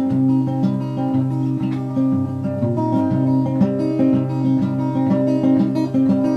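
Instrumental passage of a song: acoustic guitar playing chords in a steady rhythm, with no singing.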